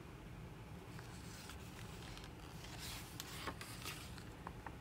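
A page of a hardcover picture book being turned by hand: soft paper rustling and sliding in the second half, with a few light clicks.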